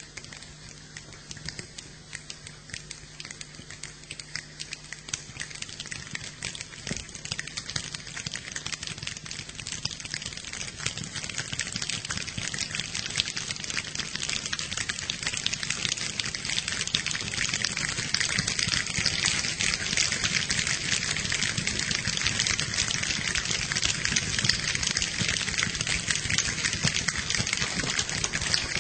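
Improvised rain sound effect: a dense pattering of many small clicks over a hiss, building steadily louder like a shower turning into a downpour.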